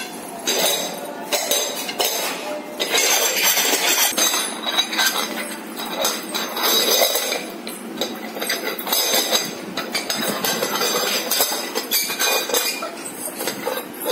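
A steel dog bowl clinking and scraping over a concrete floor as a puppy pushes it around with its nose and paws, in an irregular run of metallic clatter.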